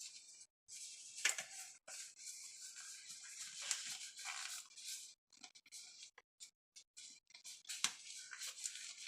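Gloved hands mixing a damp baking soda and citric acid powder in a bowl: irregular scratchy rustling that stops and starts, with a sharper tick about eight seconds in.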